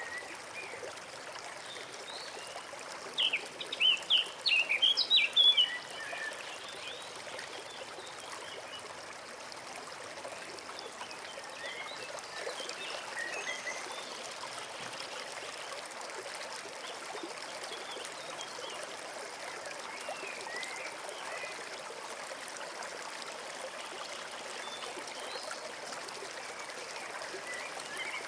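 A small forest stream trickling and babbling steadily. A bird sings a quick run of loud chirps a few seconds in, with fainter scattered calls afterwards.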